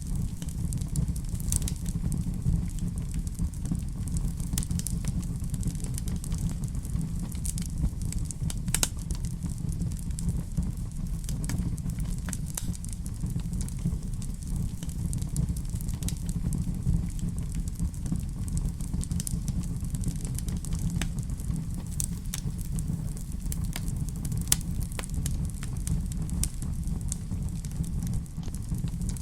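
Wood fire in a fireplace crackling, with scattered sharp pops and snaps over a steady low rumble of the flames.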